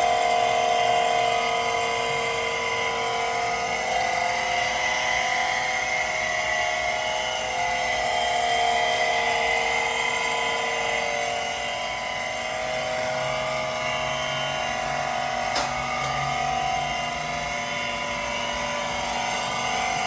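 Harig 618 surface grinder's spindle motor running, a steady whine of several pitches with the grinding wheel spinning free. A single sharp click about three-quarters of the way through.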